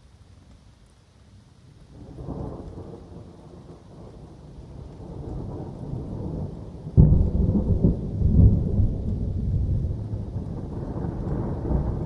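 Thunder in a summer thunderstorm: a low rumble sets in about two seconds in and slowly builds, then a sharp clap about seven seconds in breaks into heavy rolling rumble. Rain falls steadily underneath.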